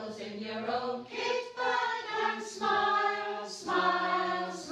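A small amateur group of mostly older women singing a song together from song sheets, in a few long held notes.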